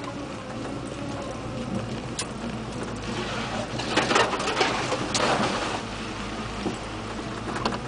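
Lifted four-wheel-drive pickup's engine running steadily at low revs, heard from inside the cab while crawling along a trail. Several louder rushing noises come between about three and six seconds in.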